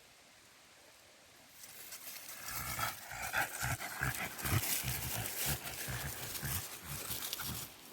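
French bulldog breathing hard close by in quick, short puffs. It starts about two seconds in after a quiet start and stops just before the end.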